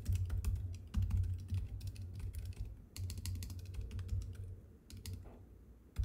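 Fast typing on the Elytra low-profile split keyboard's lubed silent linear switches: soft, quick keystroke clicks over dull low thuds, pretty much silent for a keyboard. The typing eases off near the end.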